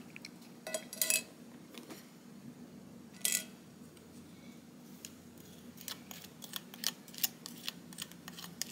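Light clicks and clinks of small spice dishes and spoons against a mixing bowl as spices are added, with a sharper clink a little after three seconds and a run of soft ticks near the end.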